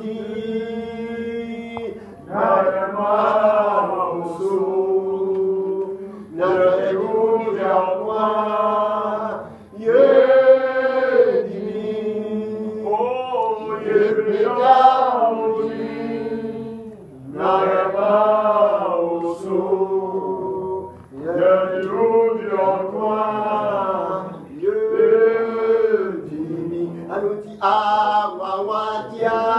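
A man singing a gospel worship song in long melodic phrases with short breaks between them.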